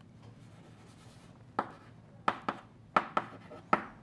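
Chalk writing on a blackboard: a faint scratching, then about six sharp chalk taps in the second half as symbols are written.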